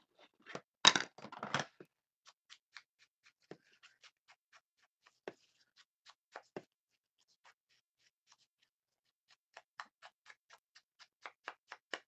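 Small craft scissors snipping around a paper cutout: a run of small clicks at an uneven pace, with a louder clatter about a second in.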